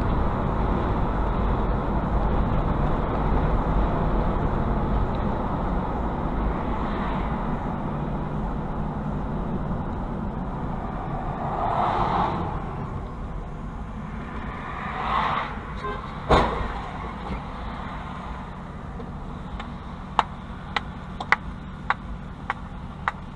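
Road and engine noise inside a vehicle slowing to a stop, fading as it slows, with one sharp click partway through. Near the end, an even clicking about twice a second starts while the vehicle stands still.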